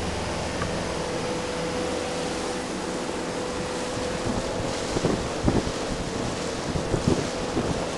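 Small fishing boat under way: a steady engine hum over the rush of water and wind. Irregular low thumps come in the second half.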